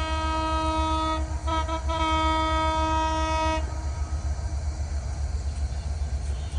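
Train horn held in one long blast that wavers briefly in the middle and cuts off about three and a half seconds in, over a steady low rumble that continues after it.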